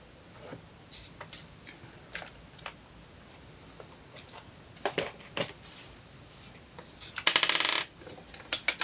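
Small objects being handled on a wooden tabletop: scattered light clicks and knocks, then a rapid rattle lasting under a second near the end, the loudest sound.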